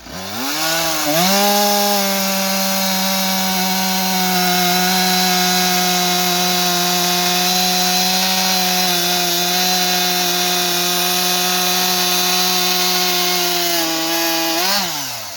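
Husqvarna 372XP two-stroke chainsaw with a prototype CPI exhaust pipe, revving up and cutting into wood at steady high revs for about thirteen seconds, then throttling off near the end.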